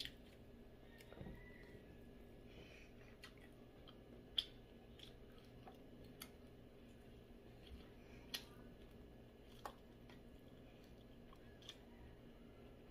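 Faint chewing and mouth sounds of a person eating soft braised pork leg by hand, with a handful of small sharp clicks, the loudest about four seconds in.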